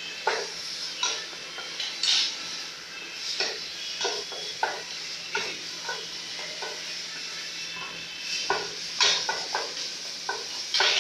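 A spoon stirring food frying in a pot. Irregular knocks and scrapes against the pot, about once or twice a second, sound over a steady sizzle.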